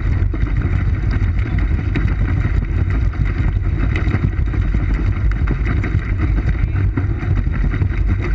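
Steady rumble and hiss of a paddle boat under way, picked up by a camera on its bow: wind on the camera and water moving along the hull.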